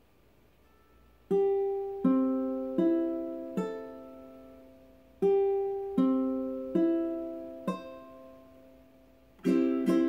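Ukulele strummed: after about a second of quiet, two groups of four single chord strums, each left to ring and fade, then quicker strumming starts near the end.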